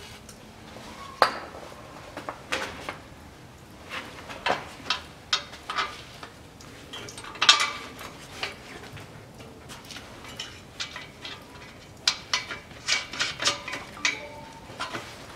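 Metal exhaust parts clinking and tapping irregularly as gloved hands fit the new muffler's pipe and a new gasket together at the exhaust flange joint, with busier runs of clinks about halfway through and near the end.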